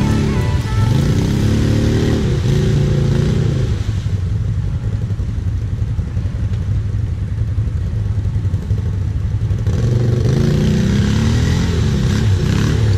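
Quad (ATV) engine revving hard in two spells, pitch rising and falling, as it is driven through a deep mud-and-sand trench. The first spell is near the start and the second begins about ten seconds in, with a steady low engine hum between.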